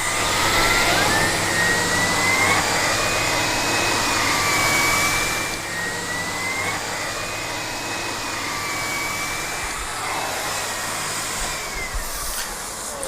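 Miele Compact C1 canister vacuum running steadily with its air-driven turbo brush nozzle, a rushing hiss with a whine that slowly rises and falls in pitch. It gets a little quieter about halfway through.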